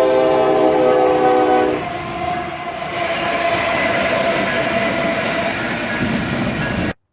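Train horn sounding a steady multi-note chord that stops about two seconds in, followed by the rumble and rattle of a passing train, cut off suddenly near the end.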